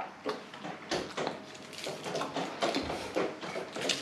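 Eating noises of a lahmacun wrapped in aluminium foil being bitten and chewed: irregular short crinkles and mouth sounds.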